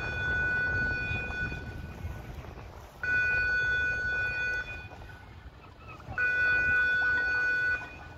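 Warning signal of a turning pedestrian swing bridge: a high steady tone sounding for about a second and a half, then off for about as long, three times over, above a low rumble of wind on the microphone.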